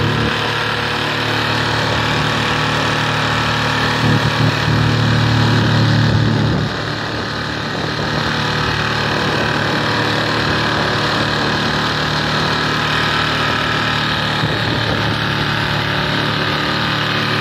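Small 6 hp auxiliary outboard motor running steadily at speed, pushing the boat through the water, with the hiss of the wake and wind over it. The level dips slightly about seven seconds in.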